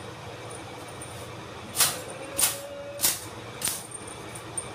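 A few sharp clicks or knocks, about two-thirds of a second apart, beginning roughly two seconds in, with a couple of fainter ticks after them.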